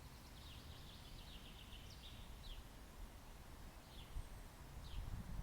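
A small bird singing: a quick run of short down-slurred chirps, then single down-slurred notes about once a second, over a faint low rumble.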